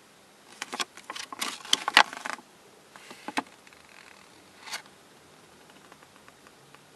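Folded paper leaflet being handled and unfolded: a burst of paper rustling and crackling for about two seconds, then two single crinkles.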